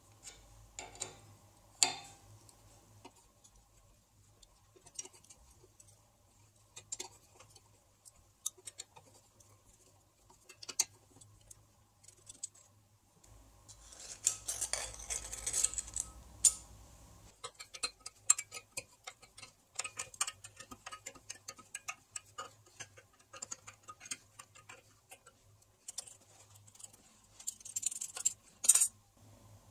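Hex key and socket-head cap screws on a steel vise jaw plate: scattered small metal clicks and ticks as the screws are turned and the plate is handled. There is a short stretch of scraping about halfway through and a sharp metal clack near the end.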